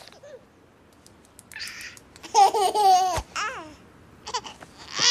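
Baby babbling and giggling in a few short high-pitched bursts, the loudest about two and a half seconds in.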